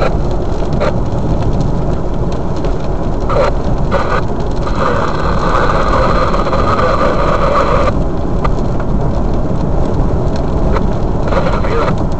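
Strong wind buffeting the microphone in a loud, steady rumble.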